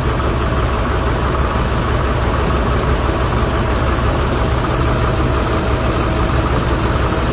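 GM 8.1-litre Vortec V8 idling steadily with a valve cover off and its rocker arms and valve springs working in the open, running on one bank with the other bank's ignition coils unplugged.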